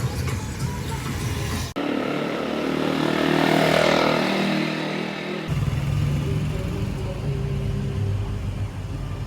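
Motor vehicle engine and road noise in short clips cut together; in the middle clip the sound swells and then fades.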